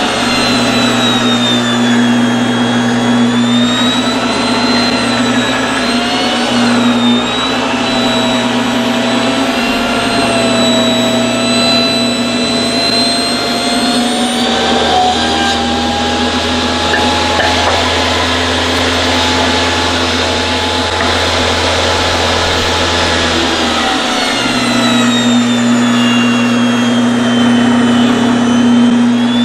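Craftsman table saw running, ripping 2x4 lumber lengthwise. The motor's whine wavers and shifts in pitch as the blade takes the load of the cut.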